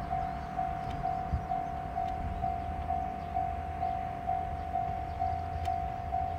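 Japanese railway level-crossing alarm ringing, an electronic tone pulsing evenly about twice a second, which warns of an approaching train, over a low rumble.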